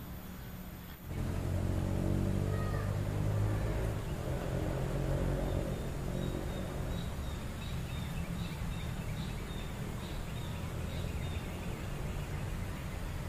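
Fast-flowing river after heavy rain, running steadily. A low drone comes in about a second in and fades after a few seconds. A run of short, high chirps repeats through the second half.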